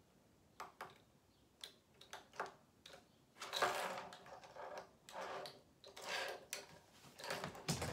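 A bunch of keys picked up from a desk and handled: a scatter of small clicks, then several stretches of jingling and rattling.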